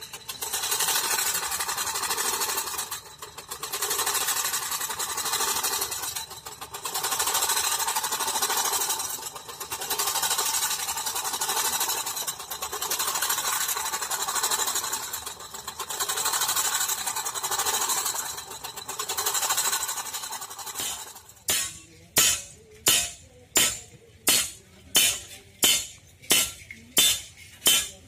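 Hand-worked leather bag bellows blowing air into a small forge fire, whooshing in slow swells every three to four seconds. About two-thirds of the way through it changes to quicker, sharper puffs, about two a second.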